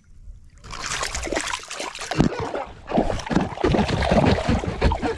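Water splashing and sloshing in quick irregular strokes, starting about a second in and going on busily.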